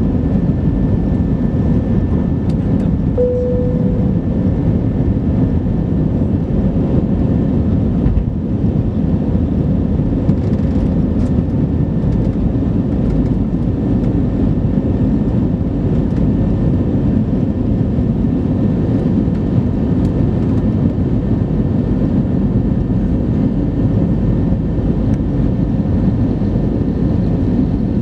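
Cabin noise of an Airbus A320neo climbing out just after takeoff: its engines at high thrust make a loud, steady, dense low rumble mixed with airflow noise. A short tone sounds about three seconds in.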